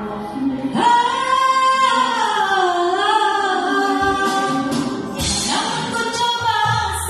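A woman singing karaoke through a microphone over a backing track. She holds long notes that bend and dip in pitch, with a short break about five seconds in before the next phrase.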